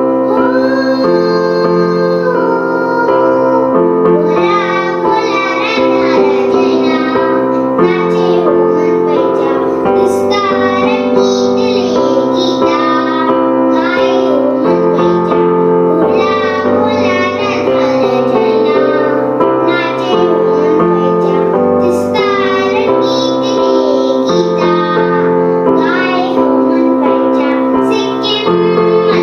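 Children singing a song in Nepali with keyboard accompaniment.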